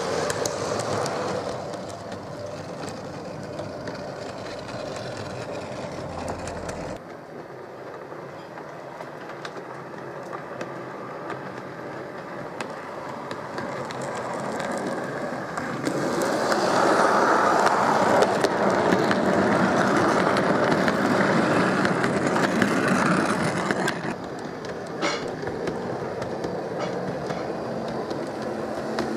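H0-scale model passenger train, a red electric locomotive hauling coaches, running along the layout track: a steady small-motor hum and the wheels rolling on the rails. It grows louder for several seconds past the middle as it passes close, then drops back.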